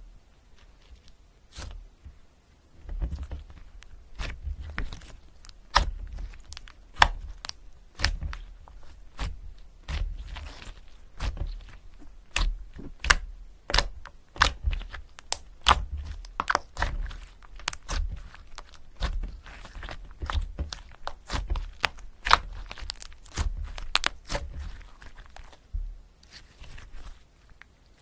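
Pen writing on paper at a desk: a long run of short, irregular strokes with dull low knocks underneath.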